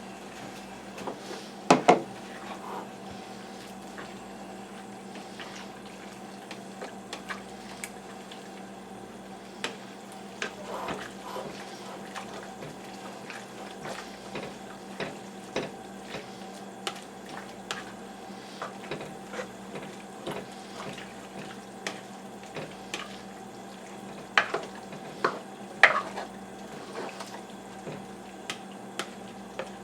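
A utensil stirring a pot of sauce as cornstarch is mixed in to thicken it, with irregular clinks and knocks against the pot and a few louder clanks about two seconds in and twice near the end. A steady hum runs underneath.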